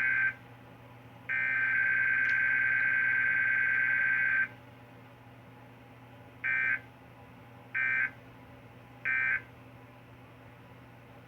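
Emergency Alert System SAME data bursts from a Required Weekly Test, in the warbling two-tone screech of the digital code. The end of one header burst is followed by a longer header burst of about three seconds. About two seconds later come the three short end-of-message bursts, a little over a second apart. A steady low electrical hum runs underneath.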